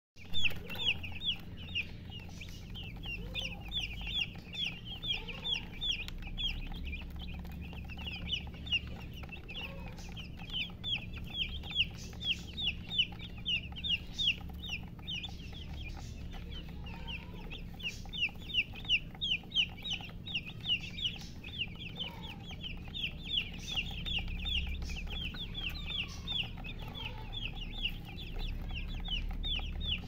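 A crowd of young chicks peeping without pause, many short high peeps overlapping several times a second.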